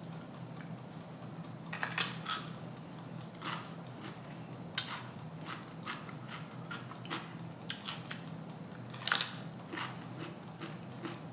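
A person biting and chewing crunchy fried food close to the microphone, with irregular crunches about once a second or two over a faint steady hum.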